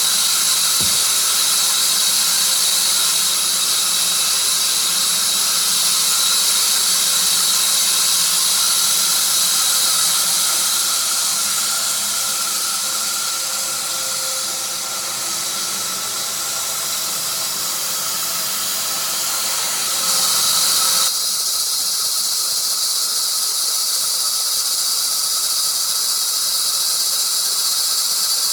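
Sawmill cutting a tree of heaven log: a loud, steady high-pitched hiss and squeal. About three-quarters of the way through the sound changes abruptly, its lower part dropping away while the high hiss stays.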